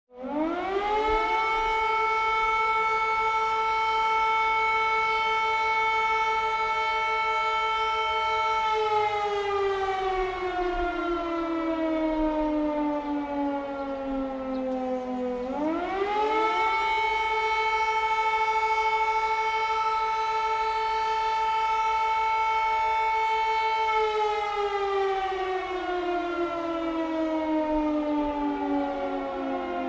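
Air raid siren wailing: it winds up to a steady pitch within about a second, holds for about eight seconds, then slowly winds down. About halfway through it winds up again, holds, and begins falling again for the last few seconds.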